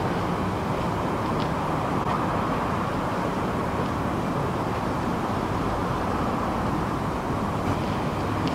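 Steady outdoor background rumble with no distinct events, and a few faint short ticks now and then.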